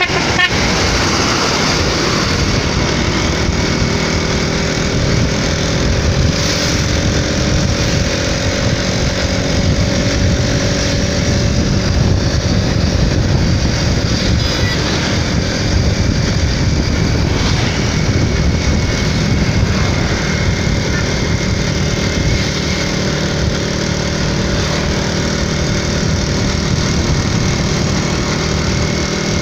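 Motorcycle engine running steadily at riding speed, heard from the saddle under a steady rush of wind and road noise, with a slow shift in engine pitch around the middle.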